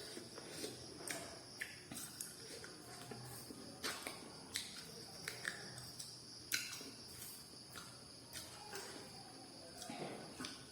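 Close-miked eating of chicken feet: irregular wet mouth clicks, lip smacks and chewing crunches, several a second at times, with a steady high-pitched chirring underneath.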